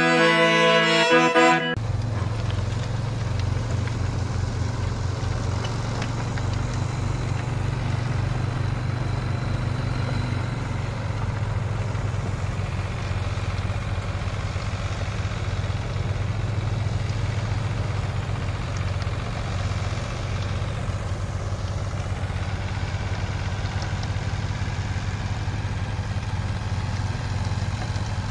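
Farm tractor engine running steadily as it pulls a rear implement along a garden row, a low, even firing note. A short burst of fiddle music ends about two seconds in, just as the engine sound begins.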